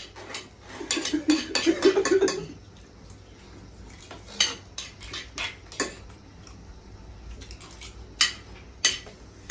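Metal spoons clinking and scraping against ceramic plates of rice as two people eat fast, in irregular sharp taps that come thickest in the first couple of seconds. A brief low hum-like voice sound comes about a second in.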